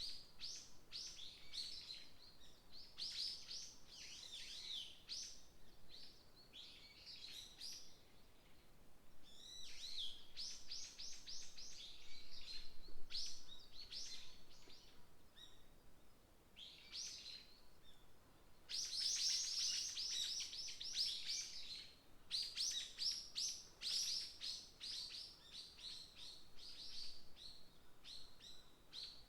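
Wild songbirds singing in a forest, with rapid runs of high chirps and trills from more than one bird overlapping. The densest, loudest run comes about two-thirds of the way through.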